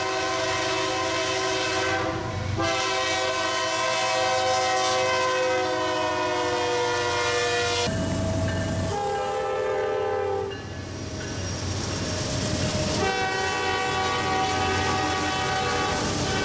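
Diesel freight locomotive air horns blowing several long multi-note chords, separated by short breaks. In the breaks, the passing train rumbles along the rails.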